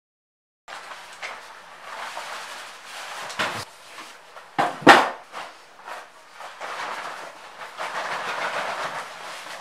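Paintbrush strokes scratching along the bars of a window frame as paint is brushed on, with a couple of sharper knocks about three and a half and five seconds in, the second the loudest.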